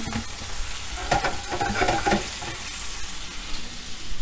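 Chicken stock sizzling in a hot frying pan on the pork chop drippings, deglazing the pan, while a utensil stirs and scrapes the bottom with a few knocks about a second in.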